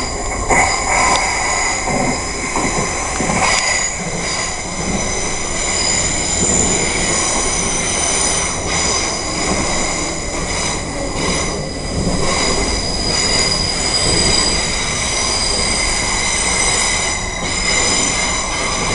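Class 387 Electrostar electric multiple unit pulling into a platform. Its wheels and brakes squeal steadily in several high pitches over the rumble of the train.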